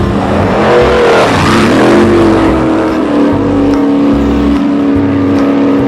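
Motor vehicle engine running, loudest about a second or two in, then its note drops and holds steady, like a vehicle passing by.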